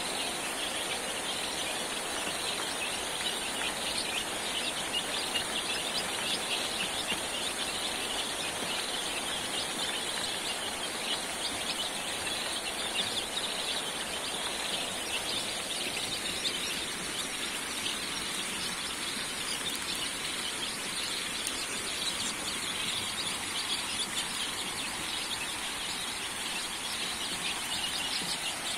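A brood of young chickens peeping continuously, many short overlapping peeps, over a steady background hiss.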